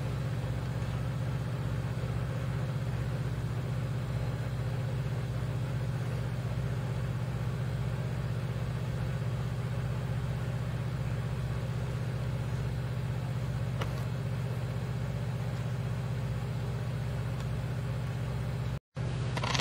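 Steady low engine drone with a constant hum that does not change in pitch or level. It cuts out abruptly for a moment near the end.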